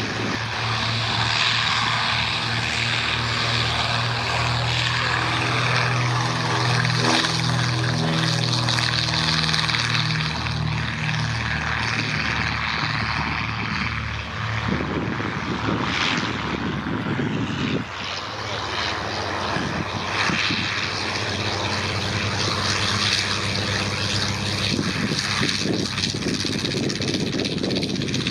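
Two Westland Lysanders' radial piston engines and propellers running as the aircraft fly a display. The engine note rises and falls in pitch as they pass.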